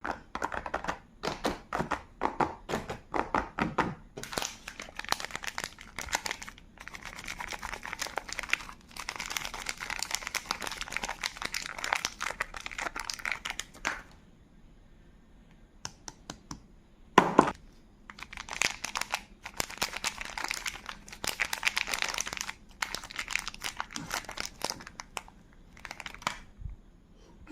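Soap wrappers crinkling and tearing as bars of soap are unwrapped by hand, in dense crackly runs with a short pause midway. There is one sharp, louder knock partway through.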